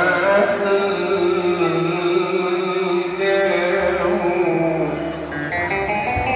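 Male singer performing an Egyptian sha'bi song into a microphone with band accompaniment, holding a long wavering note for the first three seconds before starting a new phrase. Plucked instrument notes come in near the end.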